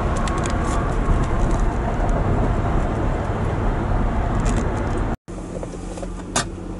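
Road noise of a vehicle driving at highway speed, heard from inside the cab. About five seconds in it cuts off sharply, and a quieter steady hum with a low tone follows.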